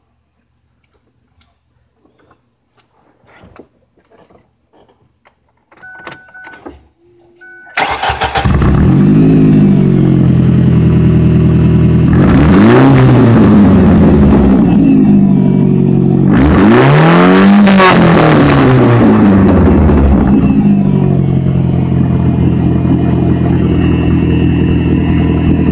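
Straight-piped 2003 Ford Focus ZX3's 2.0 DOHC four-cylinder engine, with its muffler and resonator cut off. After a few seconds of faint clicks and short beeps it starts up suddenly about eight seconds in and runs loud at idle. It is revved twice, the second rev higher, and settles back to idle each time.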